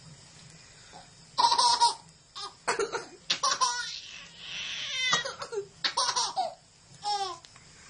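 Baby laughing in a string of short, high-pitched bursts, starting about a second and a half in.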